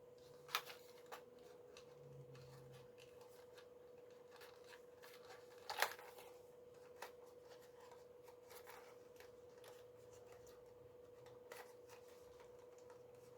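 Near silence with a faint steady hum and a few small clicks and rustles of a camcorder being handled, the loudest click about six seconds in.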